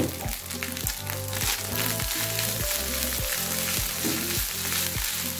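Liver fried rice sizzling in a frying pan as it is stirred with a spatula, over background music with a steady beat.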